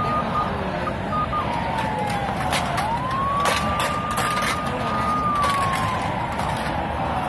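Emergency vehicle siren wailing, its pitch sliding slowly down, back up about three seconds in, holding, then sliding down again, over the steady noise of a marching street crowd.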